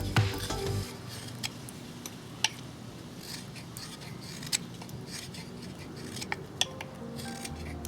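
Knife whittling a wooden hammer handle: scattered sharp cutting clicks and light scraping as shavings come off the wood.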